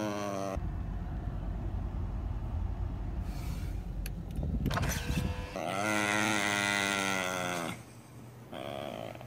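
Low, steady rumble of a car's cabin for about five seconds, followed by one drawn-out whining call lasting about two seconds.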